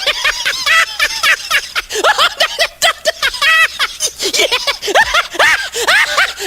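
Laughing sound effect: high-pitched laughter in quick short bursts, each rising and falling in pitch, several a second with brief breaks.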